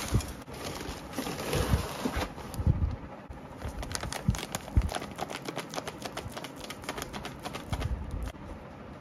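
A quick run of light clicks and taps, with a few dull thumps in the first seconds; the clicking stops shortly before the end.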